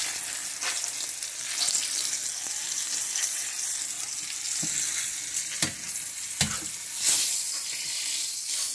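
Oil sizzling steadily in a nonstick frying pan as dried salted fish (bisugo, threadfin bream) fries in it. A handful of short clicks and knocks come from metal tongs against the pan as the fish is turned and lifted out.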